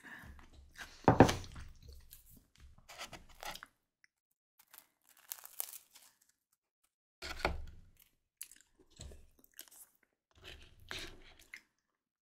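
Close-miked bites and chewing of crispy baked garlic baguette: crunching and crackling in short clusters, the loudest bite about a second in and more bites around seven and eleven seconds, with quiet pauses between.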